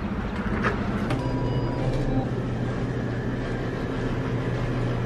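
A couple of short clicks as a glass shop door is pushed open, then the steady low hum of a convenience store's coolers and drink machines.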